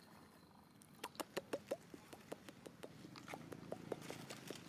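Baby monkey foraging in dry leaves and grass: a run of sharp crackling clicks, several a second, starting about a second in.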